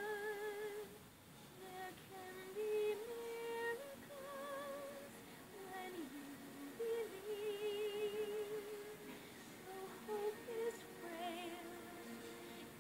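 Soft film score under a female voice singing long, wordless notes with a wide vibrato.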